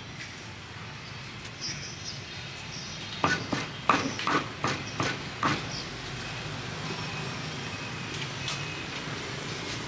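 Street ambience with a steady low hum of traffic. A few seconds in comes a quick run of about eight sharp clacks, like hard objects knocking together.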